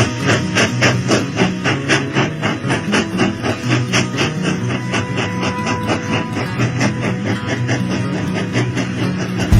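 Background music with a steady beat of about four strokes a second over a shifting low bass line.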